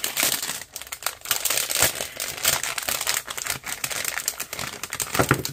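Clear plastic packaging bag crinkling and crackling irregularly as it is handled and opened and the items inside are slid out.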